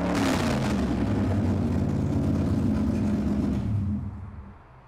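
Gasser hot rod's engine running loud and steady, with a slight rev near the start, then fading out about four seconds in.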